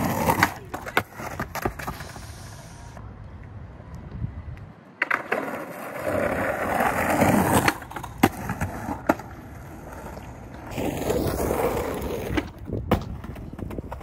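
Skateboard on soft wheels rolling over rough, crusty asphalt, with sharp clacks of the tail popping and the board landing. The rolling comes in three stretches, each followed by a few clacks.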